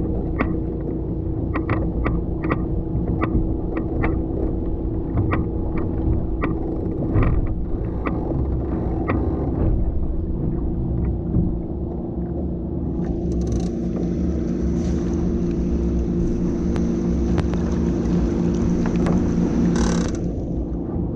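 Wind buffeting the microphone of a deck-mounted action camera on a sailing dinghy underway, a constant low rumble with a steady hum under it. Sharp ticks and knocks come about once or twice a second in the first half, and a hiss of rushing water joins about thirteen seconds in.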